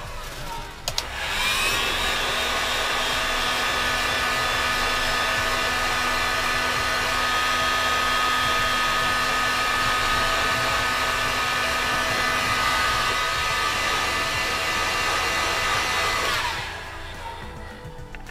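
Handheld electric heat gun switched on about a second in, its fan motor spinning up to a steady blowing whine as it shrinks heat-shrink tubing onto a wire. It runs for about fifteen seconds, then is switched off and winds down near the end.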